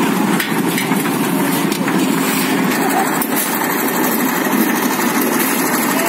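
Drum concrete mixer's engine running steadily, with shovels scraping and knocking against wet concrete and iron pans.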